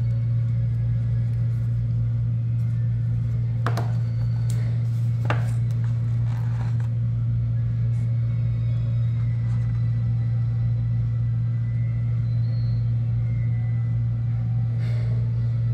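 Steady low hum at one pitch, with a few faint clicks from small plastic camera parts and a cable being handled.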